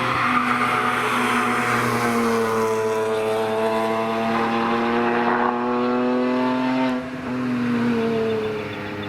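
BMW E46 M3 on track under hard acceleration, its engine note climbing steadily through the revs. About seven seconds in it drops away and then picks up again.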